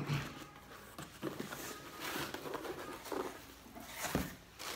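A shipping box being opened by hand: irregular scraping and rustling of its flaps and packing, with a dull thump about four seconds in.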